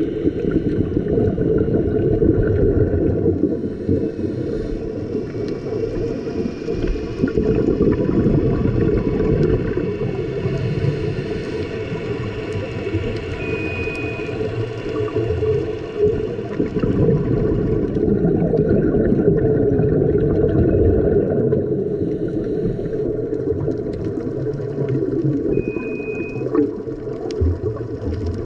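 Muffled underwater rumble and bubbling picked up through a camera housing on a dive. Two short high beeps sound about 12 seconds apart.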